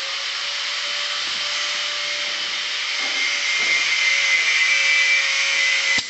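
Compressed air hissing steadily from a handheld blow gun with a faint steady whistle. It gets louder in the second half, then drops abruptly with a click near the end.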